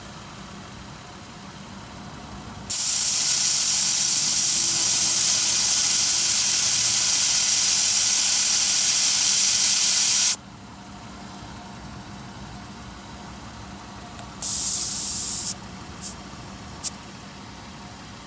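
Pressurized air hissing at a car tire's valve stem, a steady hiss lasting about eight seconds. A second hiss about a second long follows, then two short spurts near the end. Under it runs a steady low hum.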